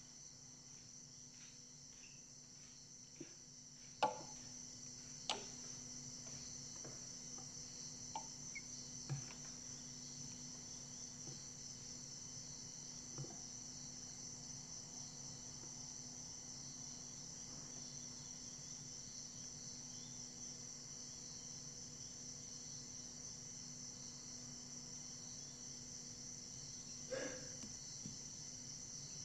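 Crickets chirring steadily in a high, finely pulsing drone, over a low steady hum. A few soft knocks stand out, the loudest about four seconds in and again near the end.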